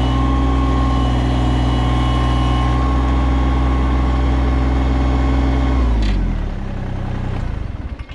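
Compact tractor's three-cylinder diesel engine running steadily, then about six seconds in it drops in pitch and winds down, dying away near the end as when switched off.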